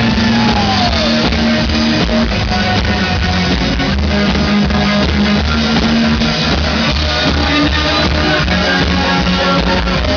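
Rock band playing live in an instrumental stretch without vocals: strummed guitar and a bass line over a drum kit, loud and dense.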